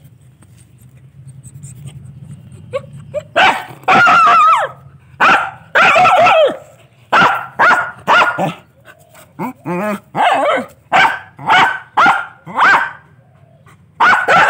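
Dog barking loudly and repeatedly, starting about three seconds in: a dozen or so barks, some short and some drawn out, in territorial barking at another dog outside the gate.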